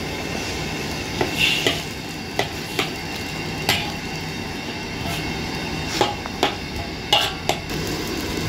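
Metal spatula scraping and knocking against a wok, irregular sharp clacks every half second to second, as charred tomatoes, chilies and shallots are stirred in hot liquid, over a steady sizzle.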